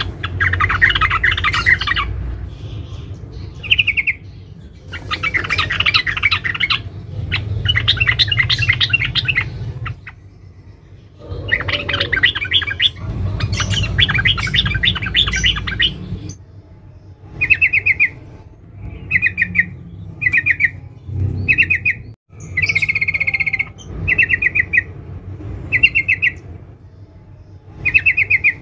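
Female yellow-vented bulbul calling: dense, rapid twittering chatter in bursts of one to two seconds, then from just past the middle shorter chattering phrases repeated a little more than once a second. A low rumble runs under the longer bursts.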